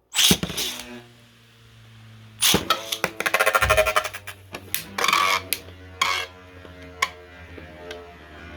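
3D-printed Beyblade spinning tops launched into the stadium, then clashing: a loud launch and hit at the start, another hard hit about two and a half seconds in, a rapid rattle of repeated contacts about a second later, then scattered single knocks as they spin on.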